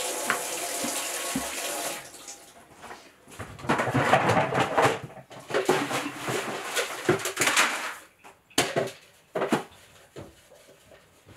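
Water running from a tap into a plastic bucket, cutting off about two seconds in. It is followed by irregular rustling and scraping in plastic buckets as horse feed is handled, and a couple of sharp knocks near the end.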